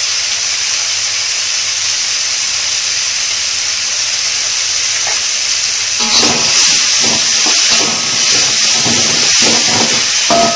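Spice paste and tomatoes frying in an aluminium wok, a steady sizzling hiss. About six seconds in, a spatula starts stirring and scraping against the wok in irregular strokes.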